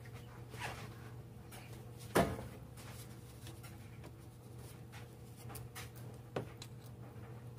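Quiet handling noises in an engine bay: a shop towel rubbing on the engine, with a sharp knock about two seconds in and a smaller one near the end, over a low steady hum.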